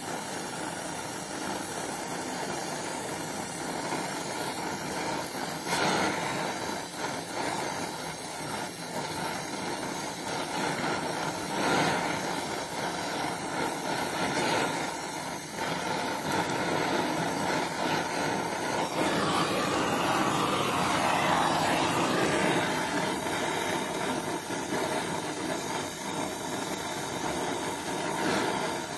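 Steady hiss of a gas-welding torch flame held on a steel heating pipe joint, with a few short crackles.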